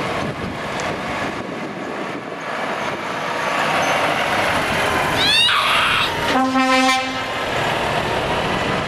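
Volvo FH tractor unit driving past close by, its diesel engine and tyres running steadily and loudest as it passes. About five seconds in there is a brief rising whistle, and just after that a short truck horn blast, one steady tone lasting under a second.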